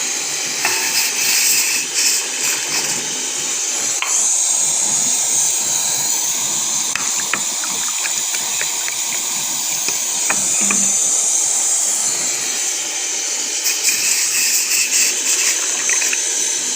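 Steady hissing from a pot of water being heated for kahwa, with a few light clinks and taps of utensils.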